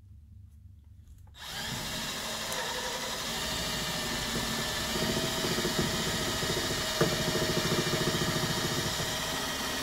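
Electric power tool starts about a second and a half in and runs steadily for the rest of the stretch, with a fast even rattle to its sound.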